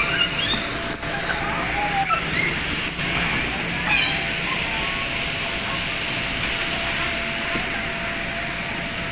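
Steady hissing din of an indoor play area, with children's short high-pitched squeals and calls scattered through it.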